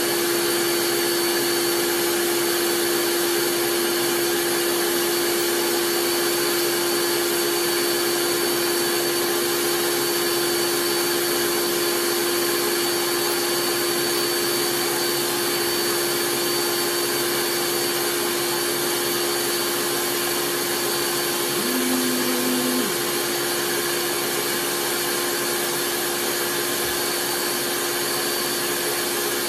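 Electric blender running steadily with a continuous motor whine, blending thick herbal ingredients with added water.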